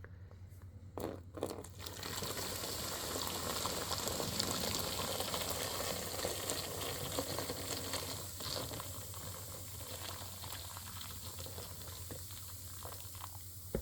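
Boiling water being poured over baking soda in a plastic container, a steady watery hiss that starts about two seconds in, builds, then slowly fades as the soda fizzes. A couple of light knocks come about a second in.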